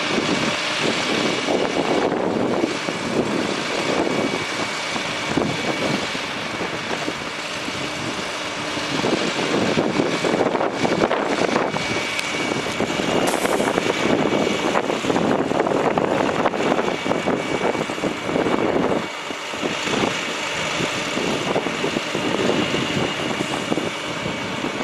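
International DT466 inline-six turbo diesel engine of a bucket truck running, with a steady high whine over the engine noise.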